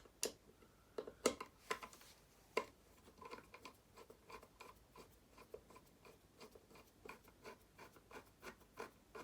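Faint, irregular clicks, taps and scrapes of electrical wires and a dimmer switch being pushed and fitted into a wall box, with a few sharper clicks in the first three seconds.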